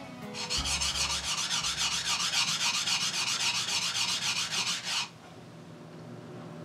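Usuba knife's single bevel being stroked back and forth on a whetstone: quick, even grinding strokes, several a second, that stop suddenly about five seconds in.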